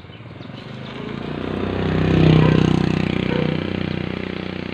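A motor vehicle passing by: its engine grows louder, is loudest a little past halfway, then fades away.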